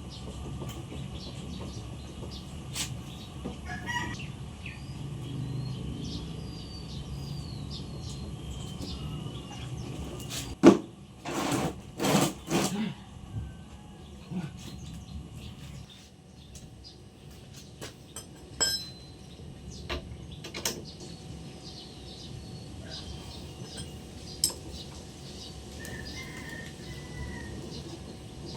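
Chickens and small birds calling in the background, with scattered single clicks. A quick run of four loud knocks comes a little under halfway through.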